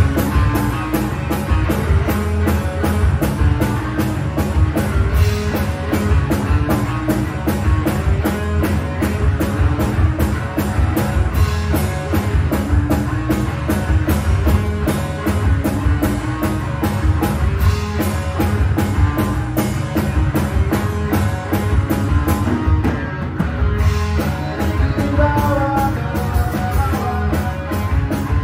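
Live rock band playing with electric guitar, electric bass and drum kit, the drums keeping a steady beat.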